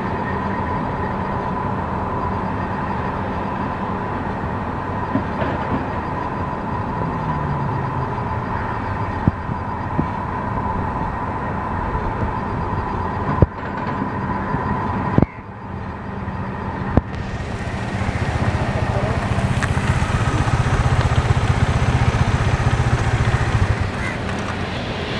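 Airbus A330-300's Rolls-Royce Trent 700 engines running with a steady whine as the jet lines up, then spooling up to takeoff thrust about two-thirds of the way in, a deep rumble that grows and stays loud until near the end.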